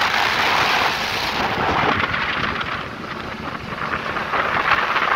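Steady rushing noise of a boat under way on open water: wind buffeting the microphone and water running past the hull. It eases a little about three seconds in, then builds again.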